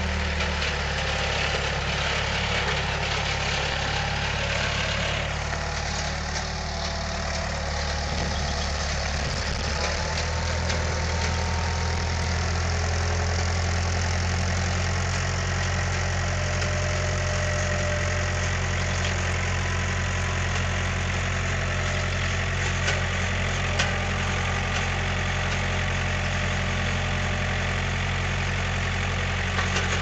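Skid steer engine running steadily while the loader lifts a load on its pallet forks. The engine note shifts about a third of the way in, with a few light metal clicks near the end.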